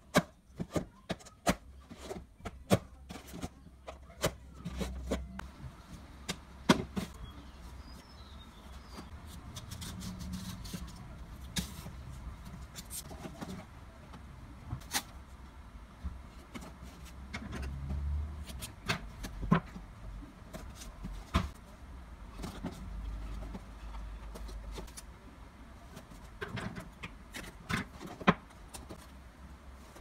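Cardboard milk cartons being handled on a cutting mat: a string of sharp taps and knocks, thickest in the first few seconds and again near the end, over a low rumble that swells and fades several times.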